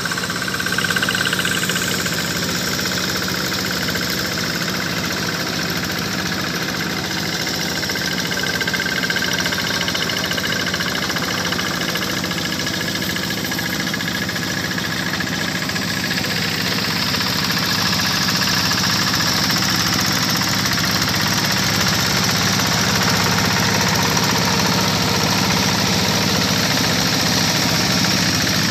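Quick G1000 Boxer hand tractor's single-cylinder diesel engine running steadily through an extra-long upright exhaust pipe as the tractor works through mud. It gets a little louder about halfway through.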